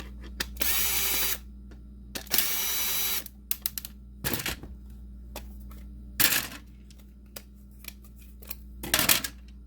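Small electric screwdriver whirring in two short bursts as it backs the screws out of a plastic game cartridge shell, followed by scattered clicks and a few louder plastic knocks as the shell is taken apart.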